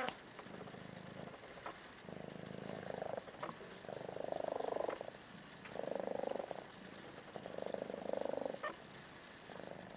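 Bengal kitten purring while being stroked on the head. The purr swells and fades in a steady cycle, about one louder stretch every one and a half to two seconds.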